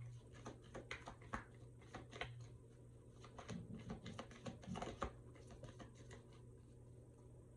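A deck of reading cards being shuffled by hand: a run of soft, irregular clicks and taps as the cards slide and knock against each other.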